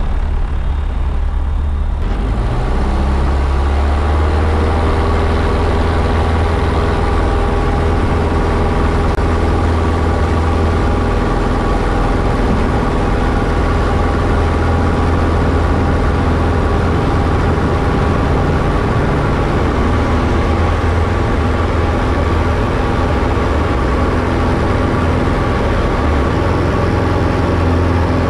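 Diamond DA-20 light aircraft's piston engine and propeller heard from inside the cockpit. Its level jumps about two seconds in as it comes up to takeoff power, its pitch climbs over the next few seconds, and then it runs at a steady full-power drone through the takeoff roll and climb-out.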